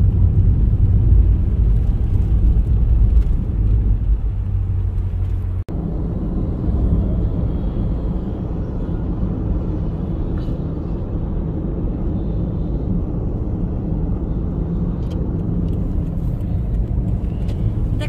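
Road noise heard inside a moving car: a steady low rumble of engine and tyres, cutting out for an instant about six seconds in.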